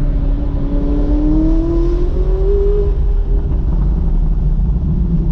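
Sheepey Race-tuned McLaren 570S twin-turbo V8 under full-throttle acceleration, heard from inside the cabin: a loud low rumble with the engine note climbing steadily for about three seconds, then dropping back.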